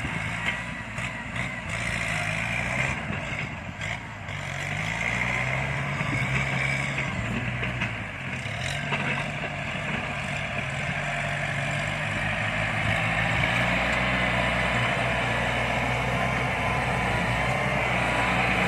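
Kubota diesel tractor engine running under load, its pitch dipping and rising a few times, with a steady hiss over it.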